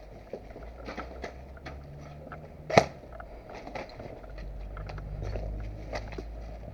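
Scattered crunching and crackling clicks of movement through dry leaves and twigs, with one sharp, loud crack nearly three seconds in.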